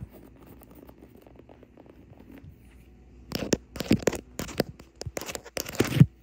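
Long fingernails lightly tapping and scratching on grey leather-grain upholstery, faint at first. From about three seconds in comes a run of louder scratching strokes over coarse woven fabric, the last one the loudest.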